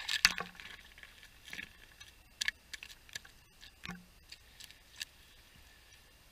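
A pickerel just pulled through an ice hole, flopping and slapping on the wet ice: about half a dozen separate sharp slaps, the loudest just after the start.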